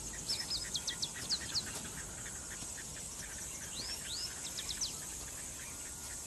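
Bush ambience: birds giving quick series of short, sharp whistled calls, one flurry about half a second in and another around four seconds in, over a steady high insect drone.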